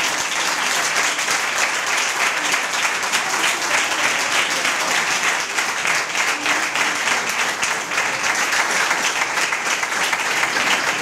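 Audience applauding: many hands clapping at once in a steady, sustained ovation.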